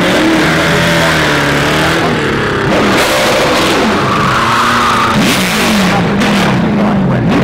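Race car engine revving hard, its pitch climbing and dropping repeatedly with throttle and gear changes.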